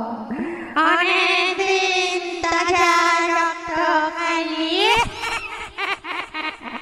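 Horror sound effect: an eerie wordless high voice, like a ghostly woman wailing or singing, holding a long wavering note and sliding upward about five seconds in, followed by a quick run of sharp clicks.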